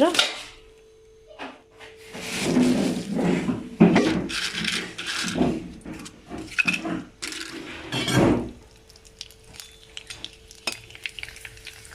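Kitchen clatter: pots, pans and utensils being handled, with irregular knocks and clinks for several seconds as cooking for frying gets under way. A steady low hum runs underneath.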